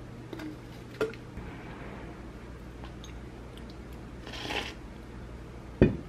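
Small clicks and a brief rustle at a kitchen table, over a steady low hum, then a glass set down on the table with a loud thump near the end.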